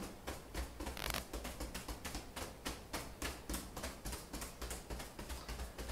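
Fingertips tapping lightly and quickly on the breastbone through a shirt, two people at once, a steady patter of about four taps a second.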